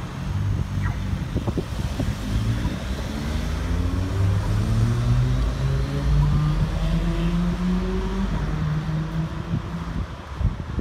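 Car traffic pulling away from a traffic light that has just turned green, the engine note rising steadily for several seconds as the vehicles accelerate, then easing off near the end.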